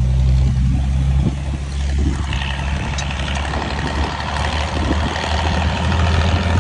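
A vehicle's engine running with a steady low hum, its pitch rising a little partway through as it gathers speed.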